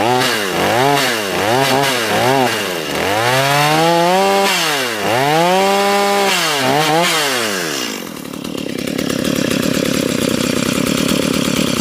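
Stihl MS210 two-stroke chainsaw engine revved in a string of short blips, then two longer revs and a few more quick blips, before dropping back to a steady idle about eight seconds in. It is being revved while its carburetor's high-speed screw is adjusted, with the mixture judged too rich or too lean and the engine stumbling.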